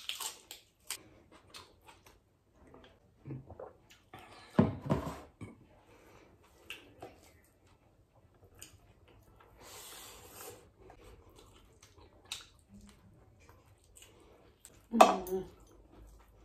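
Close-miked eating sounds: chewing and wet lip smacks with many small clicks as rice and curry are eaten by hand. Two brief louder vocal sounds come about four and a half seconds in and near the end.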